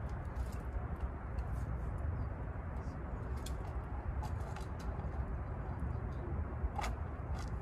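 Wind buffeting the microphone in a low, uneven rumble, with scattered sharp clicks and ticks throughout.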